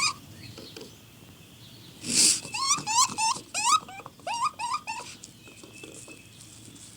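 An animal calling: a short noisy burst, then a quick series of about seven short calls, each rising in pitch.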